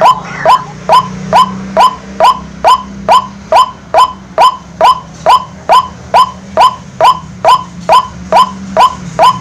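Rua-rua bird call played back as a lure from a card-playing speaker: a short, falling note repeated very evenly about twice a second, with a steady low hum underneath.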